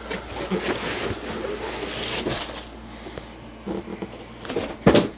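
Rustling and scraping of a cardboard product box being handled and slid over bedding, with a few light clicks and a brief louder sound near the end.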